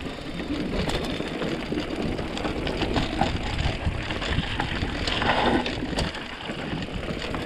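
Mountain bike rolling over a rough forest trail: steady tyre and drivetrain rattle with small ticks, and a low rumble of wind on the microphone.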